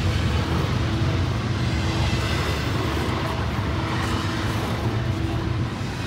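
Double-stack intermodal freight cars rolling past close by: a steady low rumble of wheels on rail, easing slightly near the end.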